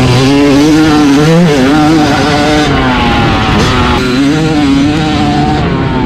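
Yamaha YZ250 two-stroke single-cylinder motocross engine running hard under the rider's throttle, recorded onboard. The pitch rises and falls as the rider opens and closes the throttle, dipping briefly twice.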